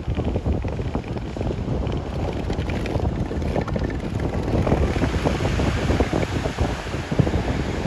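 Wind buffeting the microphone, a rough low rumble, over the steady wash of ocean surf. The hiss brightens and grows a little louder about halfway through.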